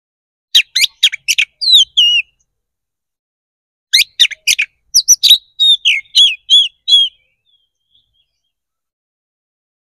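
Oriental magpie-robin (kacer) singing loudly in two phrases of sharp chips and slurred whistles, one about half a second in and a longer one about four seconds in.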